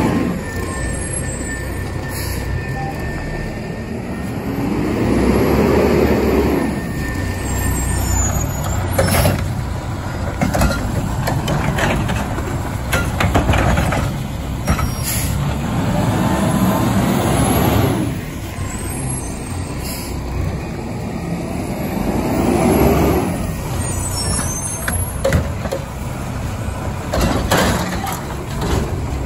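Diesel garbage truck with a side cart-tipping arm running close by, its engine revving up and falling back three times. Short sharp hisses, typical of air brakes, and clunks come in between.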